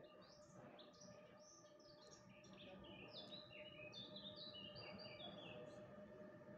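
A songbird singing faintly, a continuous run of quick, high chirps and trills, over a faint steady hum.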